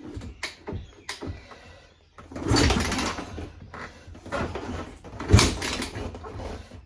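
2002 Yamaha YZ250F four-stroke single being kicked over: a run of irregular clunks and rushes of noise from the kick-start strokes, with the engine turning but not catching.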